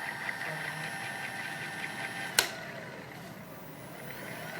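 Electric vehicle's motor running with a high whine that rises as it spins up and later falls away, carrying a quick regular ticking, with one sharp click a little past halfway: the abnormal noise the vehicle is making.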